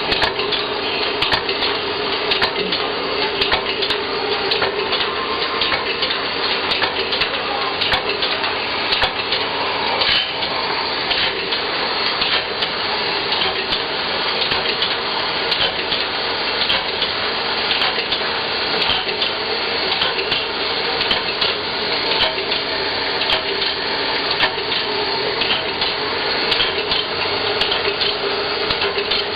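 Automatic bandsaw blade sharpening machine running: a steady hum and grinding noise with repeated short clicks as it works along the blade.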